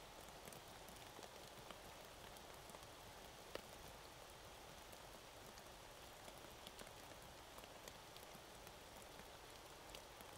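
Near silence: a faint, steady outdoor hiss with a few scattered light ticks, one a little louder about three and a half seconds in.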